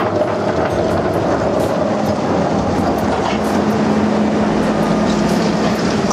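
Diesel engine of an armored military wheel loader running loudly as the machine drives close past, with a steady engine note settling in about halfway and scattered metallic clanks.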